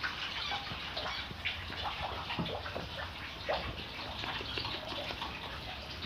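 Steady running, splashing water, with short chirps from small cage birds scattered through it.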